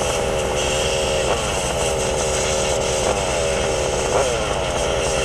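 Losi Promoto radio-controlled motorcycle's electric motor whining, its pitch jumping up with each burst of throttle and sliding back down as it eases off, several times over.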